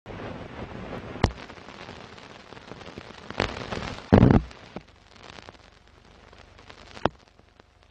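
Crackle-and-hiss sound effect like the surface noise of an old record or film soundtrack, with a few sharp pops and one heavier thump just past the middle. It fades lower in the second half.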